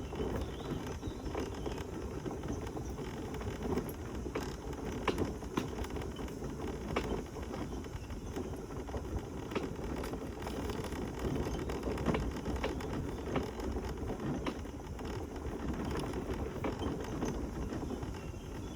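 Mobility scooter rolling along a woodland path: a steady rumble of tyres on the ground, with scattered clicks and rattles as it goes over bumps.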